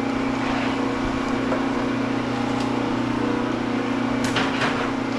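Electric wire-stripping machine humming steadily as it runs 500 MCM copper cable through, with a couple of short knocks about four seconds in.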